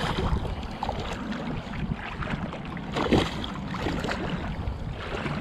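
A hooked red drum thrashing in shallow water, splashing irregularly at the surface as it is led to shore, with a louder splash about three seconds in.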